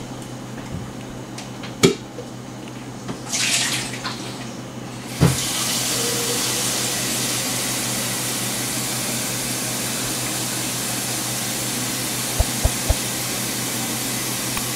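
Kitchen sink faucet turned on with a knock about five seconds in and running steadily to fill a water jug, after a few knocks and a brief rush of water at the sink.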